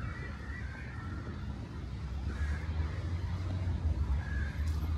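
Street traffic: a steady low rumble of passing vehicles, growing a little louder about halfway through.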